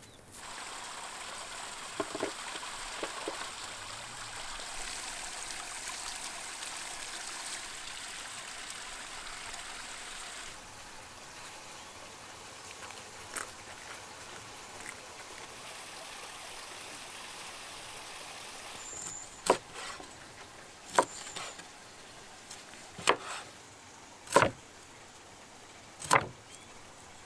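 A steady rushing hiss, then a large knife chopping through a fish on a wooden cutting board: five sharp chops about one to two seconds apart, starting about two-thirds of the way in.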